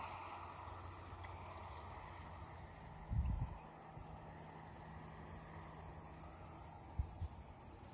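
Insect trilling steadily in a high, evenly pulsing tone. A few low thumps come about three seconds in and again near the end.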